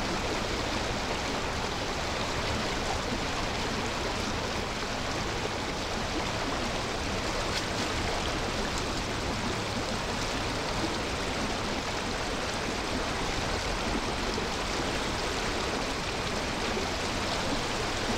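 Steady rush of running water, an even noise with no breaks or changes in loudness.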